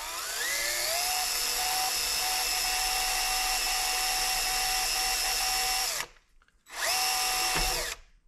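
DeWalt drill spinning up with a rising whine, then running steadily under load while drilling a detent hole for the mini lathe's feed selector lever. It stops about six seconds in, runs again briefly, and stops near the end.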